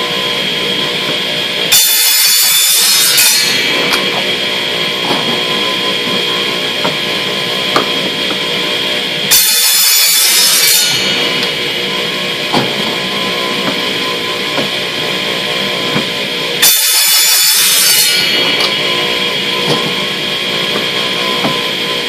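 Ridgid power saw running steadily, cutting through plastic pipe three times at even intervals, each cut a harsh high-pitched rasp lasting about a second and a half.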